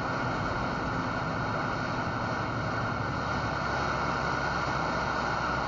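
Steady hiss and rumble of an open CB radio channel, heard through the radio speaker between transmissions.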